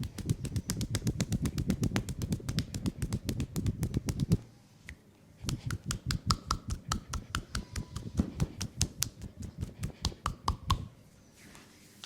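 Rapid, even hand strikes of a percussive massage (tapotement) on the leg, about seven a second. They pause about four seconds in, start again a second later and stop shortly before the end.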